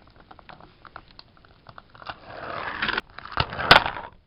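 Small plastic toaster toy being worked by hand as its toast is pushed down: light plastic clicks and scraping, then a few loud hard clacks with one sharp snap near the end.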